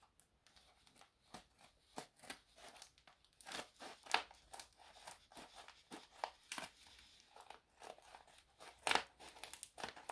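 Scissors snipping through the edge of a paper envelope, with the paper crinkling as it is handled: irregular snips and rustles, the loudest near the end.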